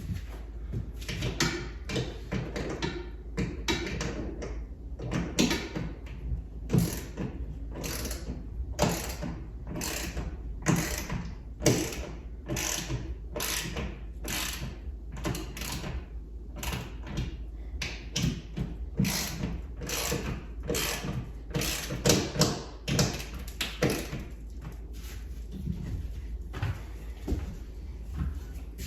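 Ratchet wrench tightening lag bolts on a TV wall-mount bracket, clicking in a steady run of strokes at about two a second.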